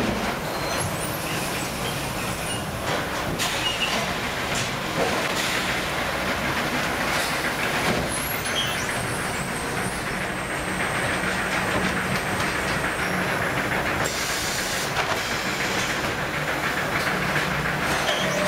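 Automatic bag palletizing machine running: a steady mechanical rumble and hum with scattered knocks and clanks as the gripper and layer plates move, and a brief hiss near the end.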